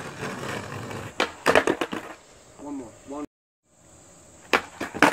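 Skateboard rolling on concrete, then a burst of loud clacks as the wooden deck slaps and clatters on the concrete during a trick attempt. After a brief dropout, the board clacks on the concrete again near the end.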